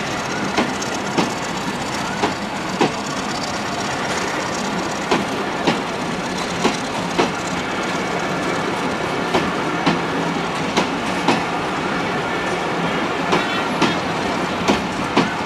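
Passenger train coaches rolling slowly past at close range as the train pulls out of the station: a steady rumble of steel wheels on rail, broken every second or two by a pair of sharp clacks as each bogie's two wheelsets cross a rail joint.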